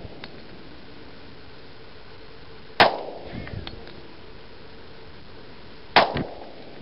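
Two 10mm pistol shots from a Glock 20 SF, about three seconds apart, each followed by a brief echo.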